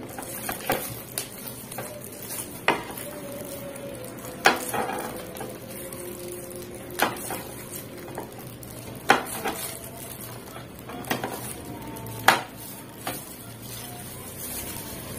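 A kitchen knife slicing a sausage into rounds on a plastic cutting board. The blade knocks on the board with sharp taps, about nine of them, irregularly spaced every second or two.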